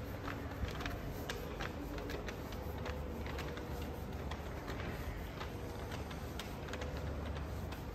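Ambient noise of a busy indoor shopping mall: a steady hum with many scattered light clicks and ticks.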